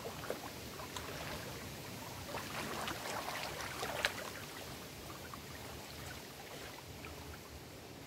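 Small lake waves lapping and splashing against shoreline rocks among reeds, a run of little splashes building to one sharper slap about four seconds in, then easing off.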